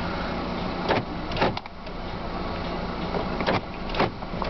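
A handful of sharp clicks and knocks from handling inside a car cabin: one about a second in, two close together a moment later, and two more near the end. A steady low hum runs underneath.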